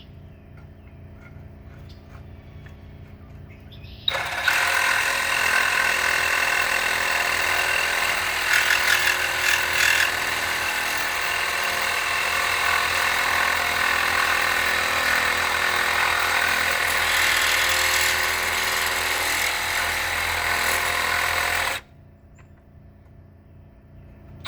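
Electric grinder cutting through a weld on a steel motorcycle frame: it starts about four seconds in, runs steadily for around seventeen seconds, and cuts off suddenly.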